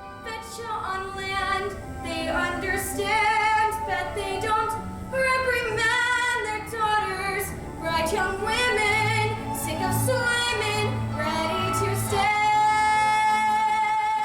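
A woman's or girl's voice singing a melody with wide vibrato over low sustained accompaniment, closing on a long held high note.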